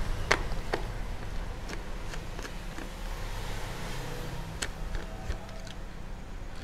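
Screwdriver turning out the small screw at the centre of the visor pivot mechanism on a Studds Ninja Elite helmet's plastic side plate. Scattered light clicks, about ten across several seconds, over a low steady hum.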